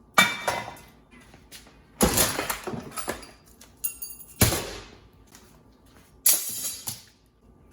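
Pieces of scrap metal clanking as they are handled and dropped onto a pile: four loud clanks, each ringing on briefly.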